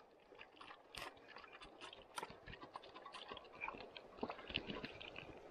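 Faint, irregular clicks and crackling rustle of close handling, a little busier in the second half.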